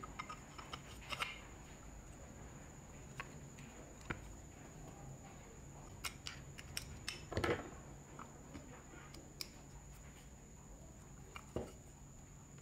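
Scattered light clicks and scrapes of metal parts being handled: the field coil of an old Shinko electric drill being worked into its aluminium motor housing, with a screwdriver scraping inside it, loudest a little past the middle.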